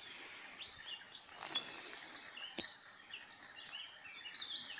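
Small birds chirping in many short, repeated calls over a steady high hiss, with a couple of sharp clicks, one about a second and a half in and one about two and a half seconds in.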